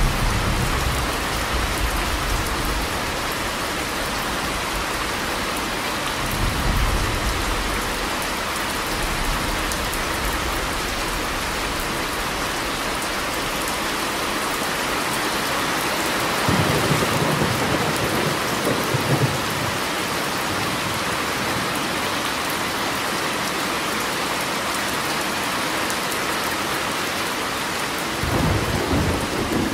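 Steady heavy rain with low rolls of thunder swelling and fading four times: at the start, about six seconds in, around seventeen seconds, and near the end.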